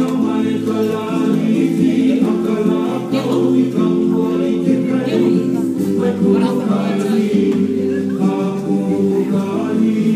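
Hawaiian hula song with several voices singing together in sustained, held notes.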